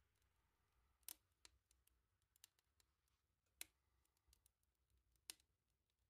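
Wood fire crackling faintly: sparse sharp pops and snaps, the loudest about a second in, past three and a half seconds and past five seconds, with smaller ticks between.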